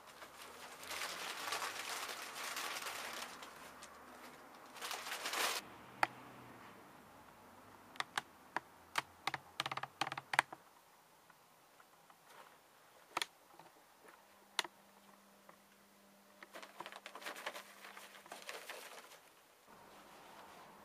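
A pet rabbit rustling through hay bedding, with a run of sharp clicks and crunches around the middle and more rustling near the end.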